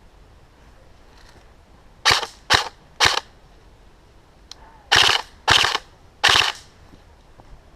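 Airsoft guns firing six short bursts, in two groups of three about two seconds apart.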